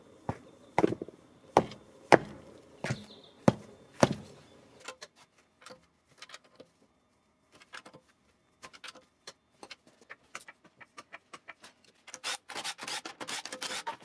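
Hand-tool work on a car's front wheel lug bolts: about six sharp metallic knocks roughly two-thirds of a second apart, then scattered light clicks, and a fast ratcheting rattle in the last two seconds as the lug bolts are loosened with a wrench.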